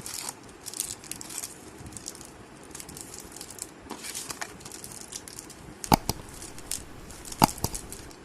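Packaging being handled by hand: irregular rustling and crinkling with small clicks, and two sharp loud clicks about six seconds in and again a second and a half later.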